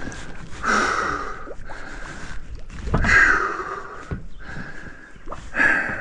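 A person breathing hard with effort while straining to shift something heavy: three loud, noisy exhalations, about a second in, about three seconds in and near the end.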